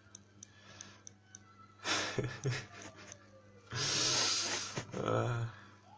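A man's breathy laughter close to a phone microphone, in a short burst about two seconds in and a longer, louder one around four seconds in; a few faint clicks before it.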